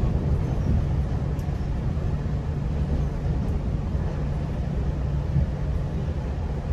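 GO Transit commuter train running along the track, heard from inside the coach: a steady low rumble of the wheels and running gear.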